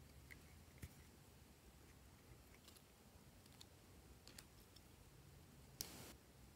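Faint clicks of a small hinged metal heart-shaped trinket box being handled and opened, then a short scrape near the end as a plastic stick digs clay out of it.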